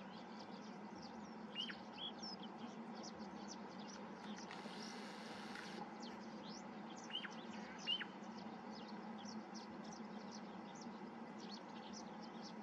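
Small birds chirping faintly in the background: many short, high chirps throughout, with a few louder down-slurred calls about two seconds in and again around seven to eight seconds. A brief hiss of noise comes about five seconds in.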